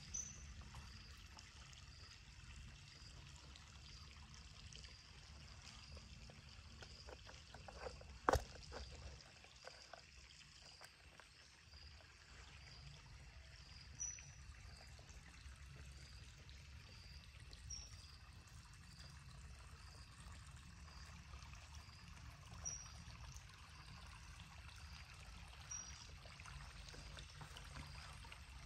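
Faint trickle of a shallow forest stream. A soft high chirp repeats evenly a little less than twice a second throughout, a few short higher chirps come now and then, and a sharp click comes about eight seconds in.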